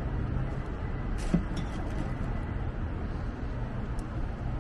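Steady low rumble of a vehicle, with a light click or two a little over a second in.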